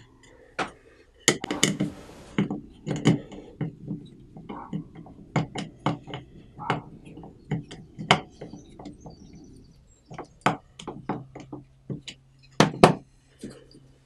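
Hand-work noise of a screw being backed out of a wooden block with a multitool's screwdriver: irregular sharp clicks and knocks of metal and wood on a workbench, with two louder knocks near the end. A steady low hum starts about three-quarters of the way through.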